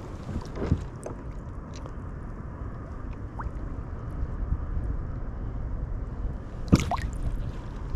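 Water sloshing around a hand holding a largemouth bass in the shallows, with a sharp splash near the end as the released fish kicks away.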